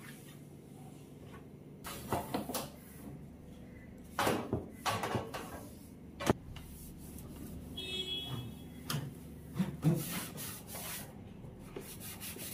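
A cloth rubbing across hard kitchen surfaces in a few short swishing strokes, with a sharp knock about six seconds in and clunks of objects being handled near the end.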